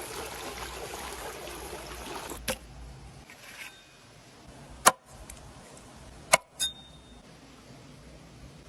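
A steady rushing hiss that stops about two and a half seconds in, then four sharp knocks, the last two close together, the last leaving a brief high ringing tone.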